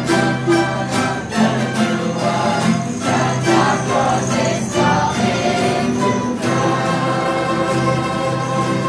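A plucked-string ensemble of bandurria-type instruments and acoustic guitars playing a Christmas carol with repeated plucked and strummed notes. Voices sing along, more steadily in the second half.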